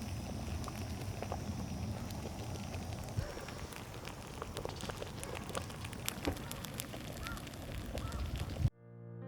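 Campfire crackling: an irregular scatter of small snaps and pops over a steady hiss. Near the end it cuts off abruptly and piano music begins.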